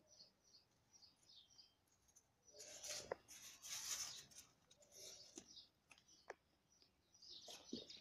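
Faint rustling and scraping of a cat pouncing on a small bird in dry leaves on stone paving, loudest in the middle, with a few sharp clicks. A few faint high bird chirps near the start.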